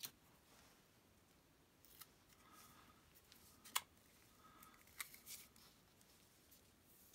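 Faint paper-and-tape handling noise as fingers press and tape a paper-wrapped rolled tube: soft rustling broken by a few small sharp clicks, the loudest about halfway through.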